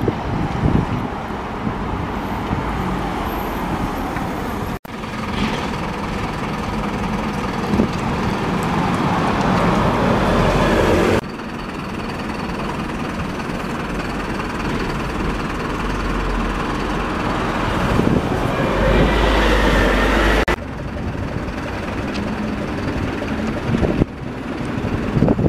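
Street noise of passing public transport vehicles, engine and running noise in several short clips joined by abrupt cuts. A rising whine sounds in one clip about three-quarters of the way through.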